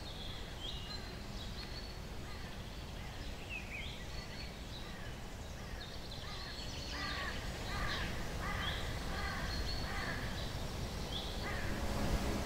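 Birds calling over a low background rumble of outdoor ambience: short high chirps throughout, joined about seven seconds in by a run of lower, evenly repeated calls.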